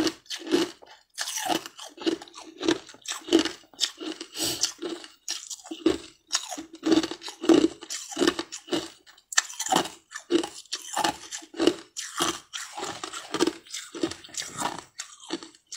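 Close-up mouth sounds of a person chewing something hard and crunchy: a steady run of crisp crunches, about two a second.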